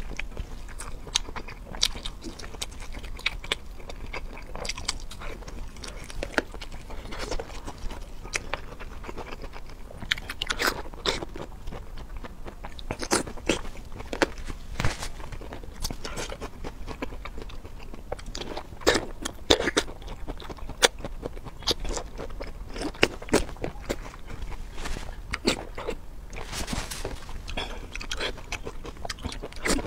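Close-miked eating: a person biting and chewing food, with many irregular sharp crunches and clicks.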